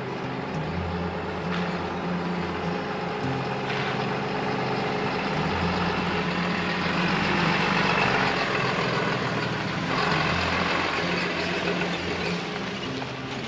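A vehicle's engine running while driving, with steady tyre and road noise that grows louder around the middle and eases off again.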